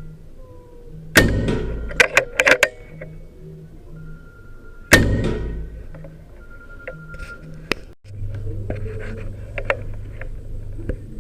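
Skout Epoch PCP air rifle firing two shots, one about a second in and one about five seconds in, each a sharp crack that dies away, with a quick run of clicks after the first.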